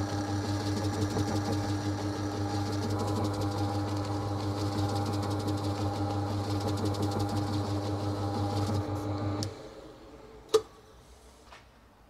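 Electric bowling-ball spinner motor running with a steady hum while an abrasive pad rubs against the turning ball. The spinner cuts off suddenly about nine and a half seconds in, followed about a second later by one sharp knock and a fainter one after it.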